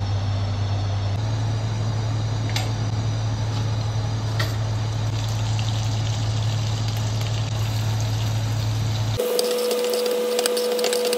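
Hot oil sizzling in a wok over a steady low hum. Near the end the sound turns to a denser crackling sizzle as sliced onions fry and are stirred.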